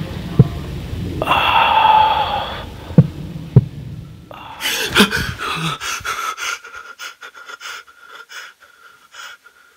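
A person gasping and panting hard, with a few sharp knocks in the first four seconds; the breathing fades away near the end.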